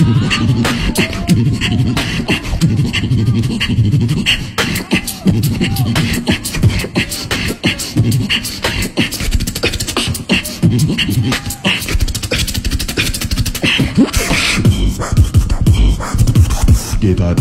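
Live beatboxing into a handheld microphone: a fast, unbroken stream of sharp mouth-made clicks and percussive hits over deep bass.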